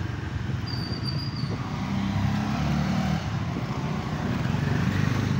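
Motorcycle engine running at low speed, a steady hum under road and wind noise, heard from the rider's own bike.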